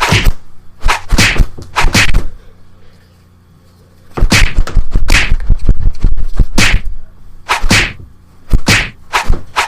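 A series of loud, sharp whacks in irregular clusters, pausing for about a second and a half near the middle, over a faint steady low hum.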